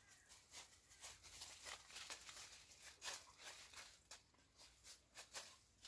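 Faint rustling of persimmon leaves: scattered soft clicks and crackles, busiest through the middle, over a faint low rumble.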